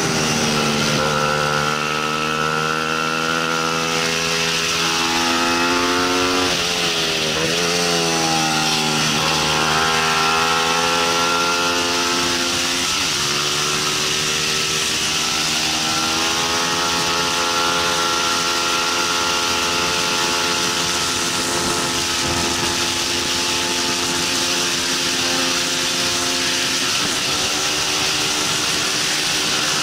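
Bajaj Pulsar 200 NS single-cylinder engine running hard, heard onboard. Its pitch falls and rises with gear changes and throttle through the corners, dropping near the start and again about halfway, over a steady rush of wind.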